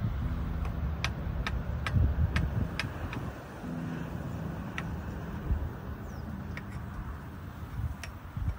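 Metal fork clicking and scraping against a frying pan as chopped tomatoes are stirred: a scatter of short, irregular light clicks over a steady low hum.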